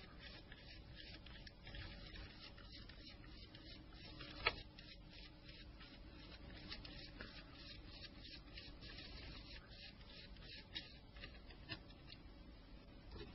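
Faint rubbing and scraping with a few small clicks, the loudest about four and a half seconds in: a size 6 Torx Plus driver turning out the small screws of a Nokia N-Gage phone's chassis.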